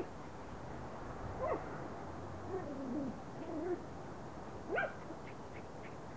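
Kleinspitz puppies making a few short, high, rising yips as they play, with a low wavering growl around the middle.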